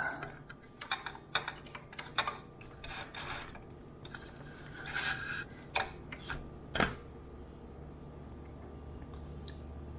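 Irregular small clicks, taps and short scraping rustles of things being handled by hand at a work table, with a sharp click about seven seconds in.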